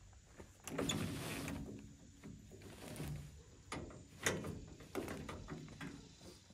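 Dump trailer's roll tarp being cranked over the load: the heavy mesh tarp rustles and drags, then the crank mechanism gives a run of clicks and knocks.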